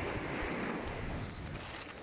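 Steady rushing of wind and surf, with a few faint clicks of pebbles as a hand picks a stone out of the shingle.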